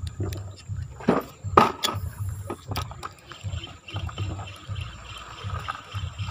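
River water sloshing around a small boat, with two loud swishes about a second in, then a spinning reel being cranked in a fast rhythmic whir as a casting lure is wound back in.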